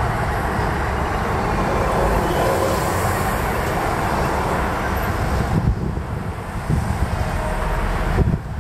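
Road traffic on a city street: vehicles passing with a steady tyre-and-engine noise, the nearest one swelling in the middle and fading away about two-thirds through.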